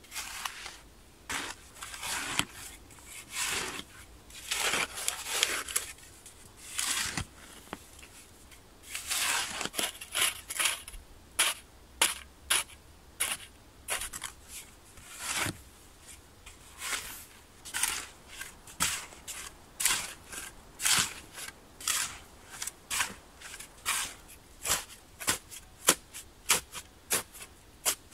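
Shovel working clay-rich earth. First come scraping scoops of soil, then from about halfway a steady run of sharp chops as the blade is driven down into the pit wall, quickening toward the end to about two a second.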